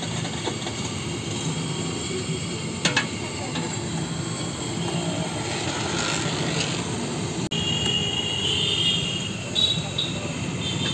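Hot oil sizzling steadily in a large iron kadai as batter fritters (bara) deep-fry, over street traffic noise and background voices. A short high-pitched tone sounds in the second half.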